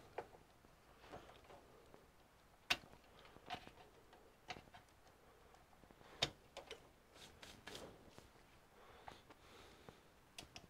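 Light clicks and knocks of cable connectors and wiring being handled and plugged in inside an open desktop PC tower. They come singly and irregularly, about a dozen in all, the sharpest near three seconds in and about six seconds in, with a quick run of small clicks just after that.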